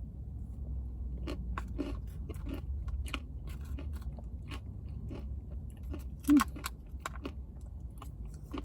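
Close-up chewing and biting of a spoonful of acai bowl, a string of short wet clicks and crunches at an irregular pace.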